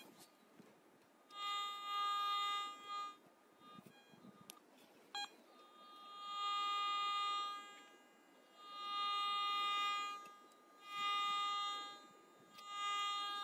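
Garrett ATX pulse-induction metal detector giving its target tone, a steady buzzy tone that swells up and fades away five times: the strong signal of a buried metal object.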